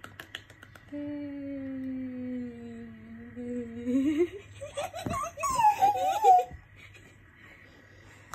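A couple of soft hand claps, then a long hummed note that sinks slowly and rises again over about three seconds. High squealing giggles and laughter follow about four seconds in, then it goes quiet.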